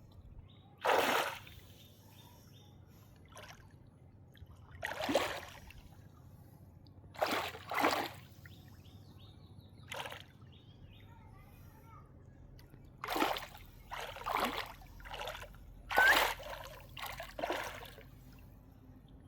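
Water splashing and sloshing in irregular bursts, about a dozen in all, more of them close together in the second half, over a faint steady low hum.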